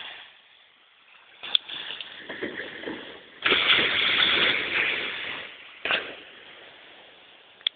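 Wind buffeting a cellphone microphone, building up and loudest for about two seconds in the middle. A few sharp knocks of the phone being handled fall in among it.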